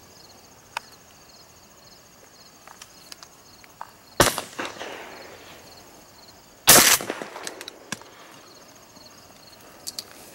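Two shotgun shots about two and a half seconds apart, each followed by a short echo; the second is the louder.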